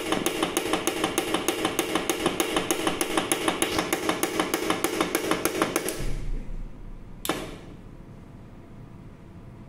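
Coblator 2 regulator clicking rapidly and evenly, about four clicks a second over a steady hum, as the unit triggers on its own: the auto-trigger fault. The clicking stops about six seconds in, and one sharp click follows about a second later.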